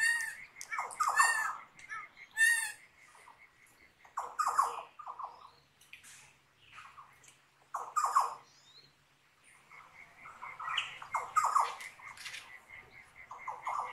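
Australian forest birds calling in bouts of harsh squawks and chirps, over a cricket's steady pulsing chirp that drops out in the middle and comes back near the end.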